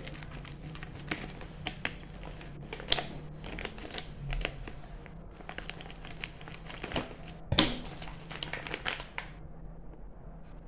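Packaging being handled and crumpled during an unboxing, a dense run of irregular crinkling crackles with a few sharper, louder crackles. The crackling thins out near the end.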